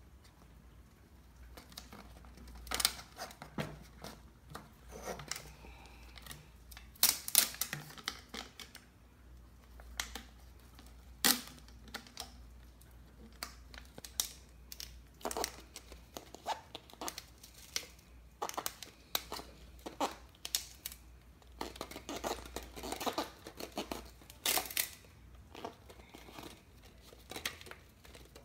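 A strip of tape being pulled, torn and wrapped around the top of a drink can, crackling and tearing in irregular bursts with small clicks and knocks as the can is handled.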